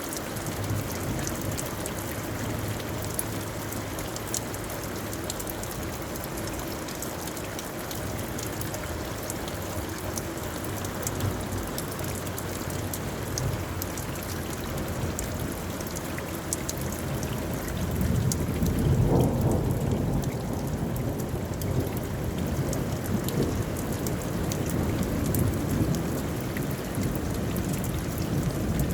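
Steady rainfall with fine scattered drop ticks, and a low rumble that swells about two-thirds of the way through and comes back briefly near the end.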